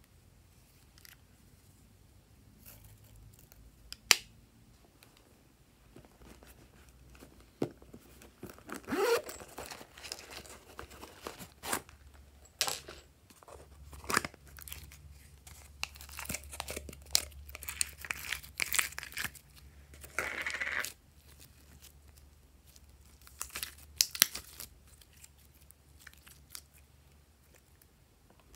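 Hands handling and opening plastic slime packaging: scattered sharp clicks and taps, with stretches of rustling and crinkling in the middle, while glitter slime is tipped out of a plastic tub.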